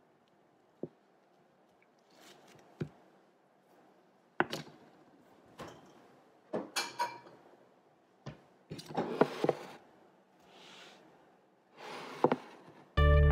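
Kitchen handling noises: a chef's knife cutting a block of butter knocks on a wooden cutting board, with wrapper rustle and a red ceramic mug taken out and set down on the counter, a string of separate knocks and clicks. Acoustic guitar music starts just before the end.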